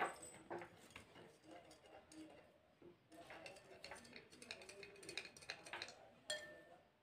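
A spoon stirring salt into a glass of water, clinking faintly and irregularly against the glass.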